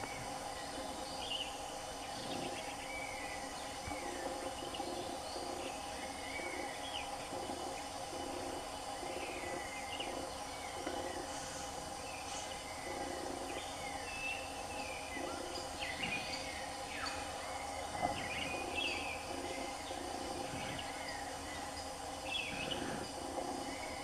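Forest ambience: small birds giving short, scattered chirping calls over a steady drone of insects.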